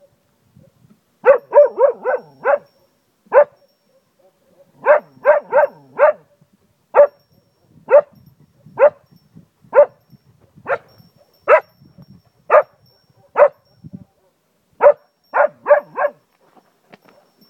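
Cocker spaniel barking close by in short, sharp barks. It gives quick runs of four or five barks, and between them single barks about one a second.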